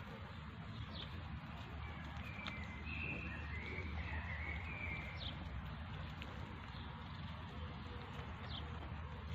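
Small birds chirping now and then, short high calls every few seconds with a brief twittering run about two to five seconds in, over a steady low rumble.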